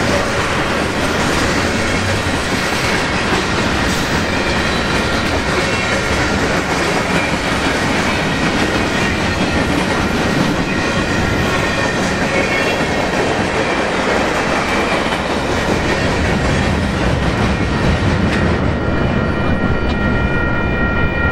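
Mixed freight train cars rolling past close by: a loud, steady wheel-on-rail rumble and clatter. About eighteen seconds in the noise eases and a steady high ringing tone comes through.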